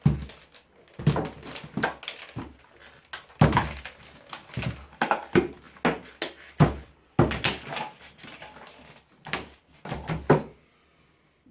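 Irregular knocks and clanks, more than a dozen, of metal parts and tools being handled while a fan is taken apart for scrap. They stop near the end.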